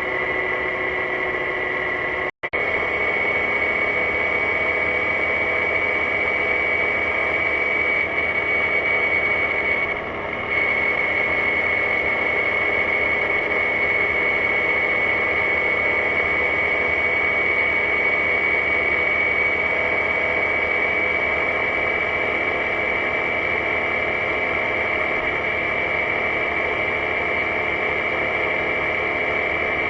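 BMW C650GT maxi-scooter riding at a steady speed: wind rushing past with the scooter's engine and drive running under it and a steady high whine. The sound cuts out for an instant about two seconds in and dips briefly near ten seconds.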